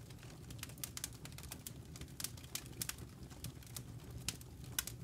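Wood fire crackling in a Solo Stove Bonfire smokeless fire pit: irregular sharp pops and snaps, several a second, over a low steady rush of the flames.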